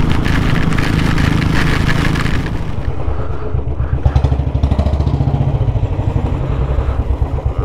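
Motorcycle riding fast on a wet road, its engine under a loud hiss of wind and spray from the tyres. After about three seconds the hiss drops away and the engine chugs slowly with an even, low beat, the bike rolling at walking pace.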